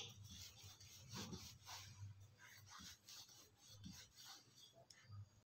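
Faint rubbing of a wooden rolling pin rolling out paratha dough on a marble rolling board, in repeated soft strokes.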